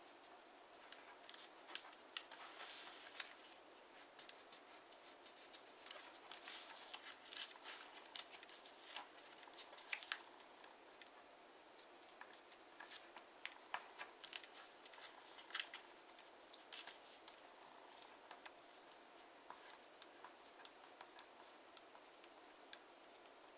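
Faint paper handling: a sheet of TANT origami paper rustling and crackling as fingers fold it and press the creases flat against a tabletop, with scattered sharp crinkles and a few longer rustles.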